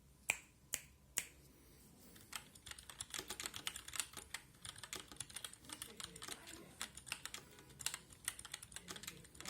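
Mechanical keyboard with unlubed Gateron Brown tactile switches in a 3D-printed gasket-mount case. There are three single key presses about half a second apart, the third the loudest, then fast continuous typing from a couple of seconds in.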